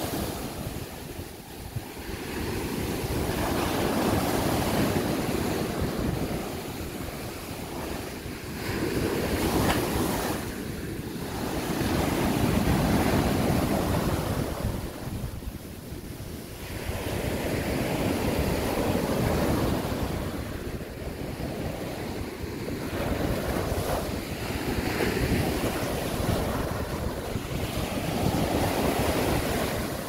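Sea surf breaking and washing up a sandy beach, the rush swelling and fading every few seconds, with wind buffeting the microphone.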